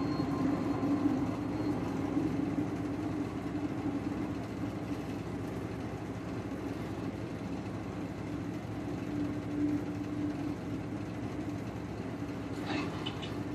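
Tandem-rotor CH-47 Chinook helicopter's engines and rotors making a steady low drone as it flies, with a couple of brief higher-pitched sounds near the end.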